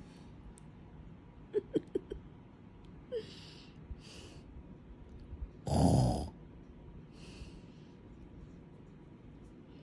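Bulldog puppy breathing noisily through its short, pushed-in nose in short puffs, with one loud puff a little before the middle. About a second and a half in there are a few quick clicks with a small squeak.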